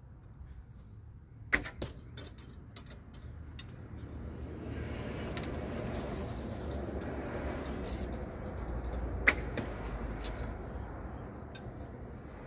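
Two shots from a 55 lb short horse bow: the string snaps sharply on release about a second and a half in and again about nine seconds in. A few lighter knocks follow the first shot. A rushing noise swells and fades between the two shots.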